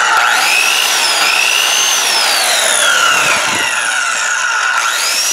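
Ryobi circular saw spinning up on the trigger with a rising whine, running unloaded with no cut, then coasting down with a falling whine. It is triggered again and spins up near the end.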